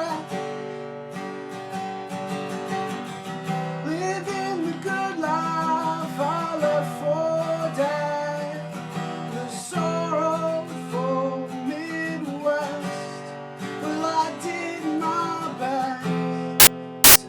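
Acoustic guitar strummed in an instrumental passage of a folk song, with a melody line over the chords. About a second before the end, two loud sharp clicks.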